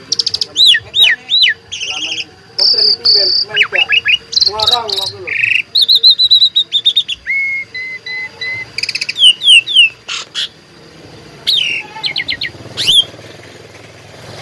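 Asian pied starling (jalak suren) singing loudly in a varied run of short phrases: clear whistles, quick up-and-down sweeps, buzzy notes and rapid repeated chips, typical of a bird in full song with mimicked fill-in phrases. The song stops about a second and a half before the end.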